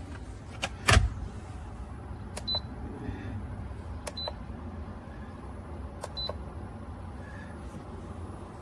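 A loud knock about a second in, then three pairs of sharp clicks, each pair with a very short high beep, over a steady low hum.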